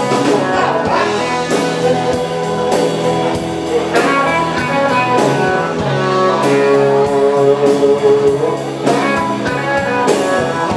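Live band playing an instrumental break: electric guitar lead over bass and a steady drum beat.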